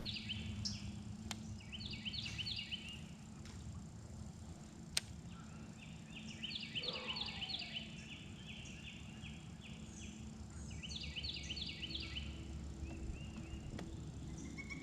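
Chirping animal calls, high and rapid, in short bouts every few seconds over faint outdoor background noise, with a single sharp click about five seconds in.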